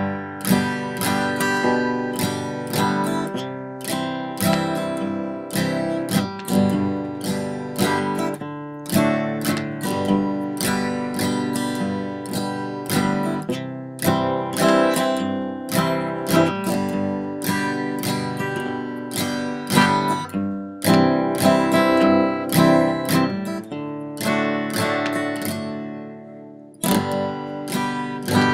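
Background music: an acoustic guitar strummed in a steady rhythm, with a brief break near the end.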